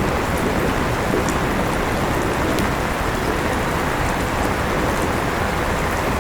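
Steady rain with an electric fan running: an even, unbroken hiss with faint scattered drop ticks.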